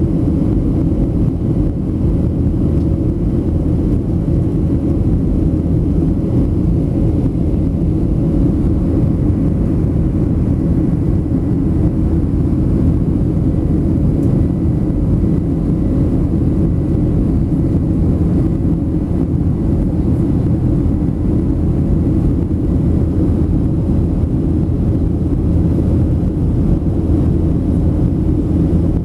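Steady cabin noise of a Boeing 737-700 in flight, heard from a window seat over the wing. Its CFM56 engines and the airflow make a constant, even low drone, with a faint steady hum above it.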